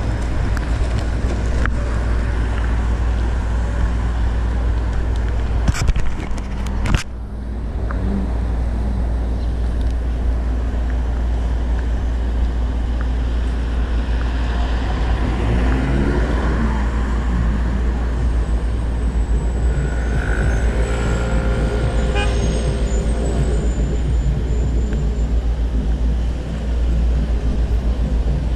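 City street traffic: cars passing through an intersection over a steady low rumble. Two sharp knocks come about six to seven seconds in.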